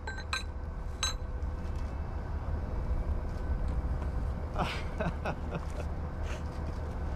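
Steady low outdoor rumble with a couple of sharp clicks in the first second, and a brief rustle of cloth about halfway through as a fabric banner is pulled off a metal plaque.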